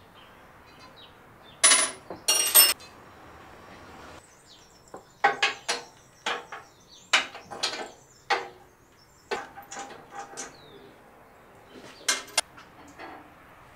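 Hand tools knocking and clinking against the cast-iron body of a Wadkin Bursgreen table saw as its top is being unbolted, in irregular metallic clanks. Two louder, ringing clanks come about two seconds in.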